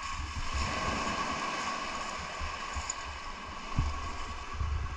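Wind buffeting the microphone in uneven gusts over a steady outdoor hiss, with one soft low thump a little before the end.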